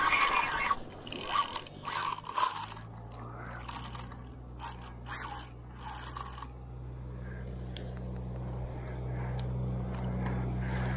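A spinning reel on a catfish rod ratchets in about seven short spurts over the first six seconds as a fish is played. From about two and a half seconds in, a steady low motor hum comes in and slowly grows louder.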